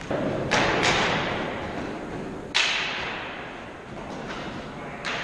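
Floor hockey sticks and ball clacking in a gym: two sharp clacks close together about half a second in, another at about two and a half seconds, and one more just before the end, each followed by a long hall echo.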